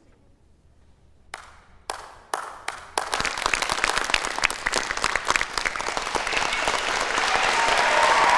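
About a second in, a few lone claps ring out one by one, then the whole audience breaks into applause that keeps growing louder.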